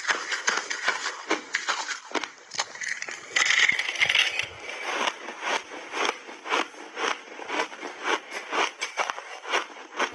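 Close-miked crunching of crushed, refrozen mixed-berry ice being chewed: sharp crunches a few times a second, with a louder, harsher stretch about three and a half seconds in.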